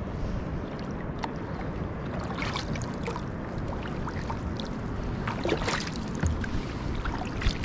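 Sea kayak being paddled: paddle strokes splashing and dripping over a steady wash of water, with a few louder splashes.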